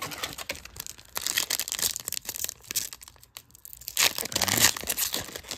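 Foil wrapper of a trading-card pack crinkling as it is handled and torn open, louder about a second in and again around four seconds in.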